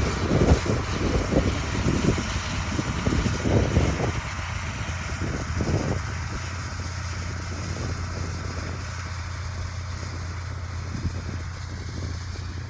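Farm machinery engine running steadily with a low drone, with uneven rumbling bumps over it in the first few seconds.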